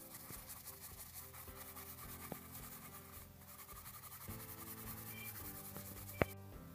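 Brush scrubbing the ink resist off an etched copper circuit board in quick back-and-forth rubbing strokes, with soft background music under it. One sharp tap near the end.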